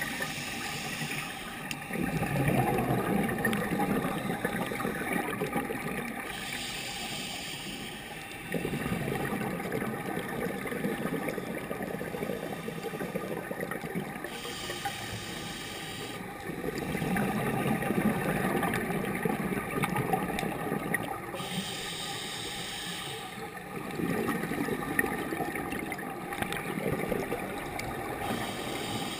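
Scuba diver breathing through a regulator underwater: a short hiss on each inhale, then several seconds of bubbling rumble as the breath is exhaled, about four breaths in a slow, even cycle.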